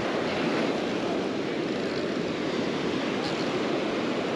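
Steady roar of surf breaking and washing up a sandy beach.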